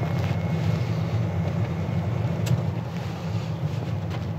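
Jeep J20's 5.9-litre V8 engine running steadily under way, with road noise from the moving truck.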